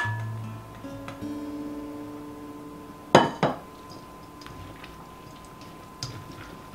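Enamelware mixing bowls clinking as sausage and onion are scraped from one bowl into the other with a spatula and then stirred. A sharp clink comes right at the start, two louder ones follow a little over three seconds in, and a softer one near the end, over soft background music.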